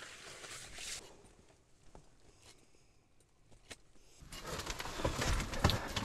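Handling noise of a person moving about with fishing gear: a soft rustle at the start, a few faint clicks, then a louder stretch of rustling, clicks and knocks over the last two seconds.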